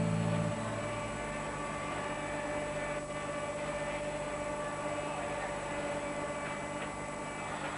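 Planing-section machinery running with a steady hum of fixed tones. A heavier low drone drops away about half a second in.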